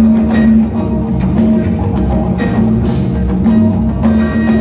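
Student jazz band playing live: horns holding notes over percussion that keeps a steady beat.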